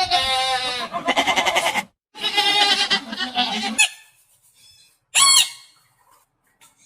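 An animal calling: two long, quavering calls one after the other, then a short, higher call about five seconds in.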